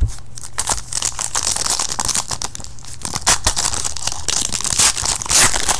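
Foil wrapper of a 2013 Panini Prestige football card pack being torn open and crinkled in the hands: a dense run of crackling, with the loudest tearing about three seconds in and again near the end.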